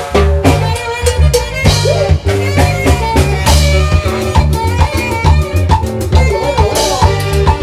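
Loud live norteño band music with a drum kit keeping a steady dance beat over bass notes.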